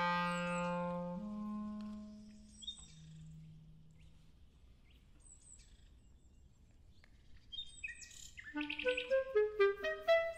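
Solo clarinet sustaining low notes that step in pitch and fade away, then a hushed pause with only a few faint high chirps. From about eight seconds in comes a quick flurry of short, detached notes leaping up and down.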